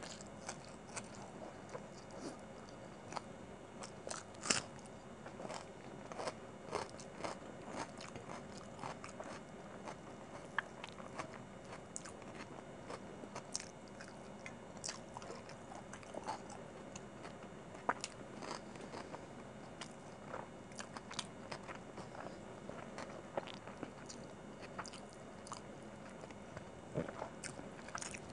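Close-miked mouth sounds of eating chicken biryani by hand: chewing and biting soft rice, potato and chicken, with many short, sharp clicks throughout.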